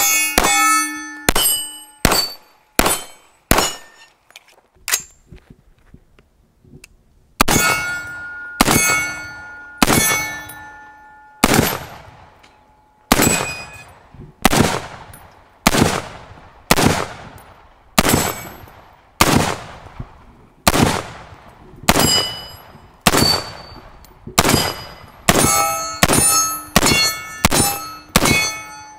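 Gunshots at steel targets: a quick string of about half a dozen .45 ACP shots from a 1911 pistol in the first four seconds, then, after a pause, a steady string of .308 shots from an AR-10 pistol about one a second, quickening to rapid fire near the end. Many shots are followed by the ringing clang of hit steel plates, and each shot trails off in a long echo.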